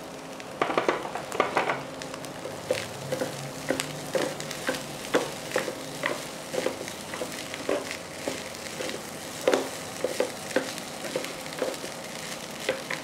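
Fried rice sizzling in a nonstick frying pan as it is tossed with chopsticks and a wooden spatula, the utensils clacking against the pan irregularly, about one or two knocks a second, most busily about a second in.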